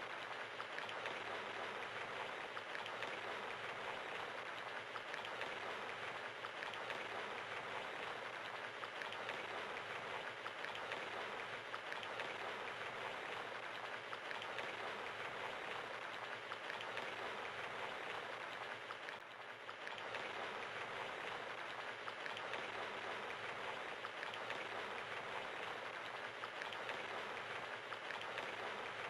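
Steady rain pattering, with a brief dip in level about two-thirds of the way through.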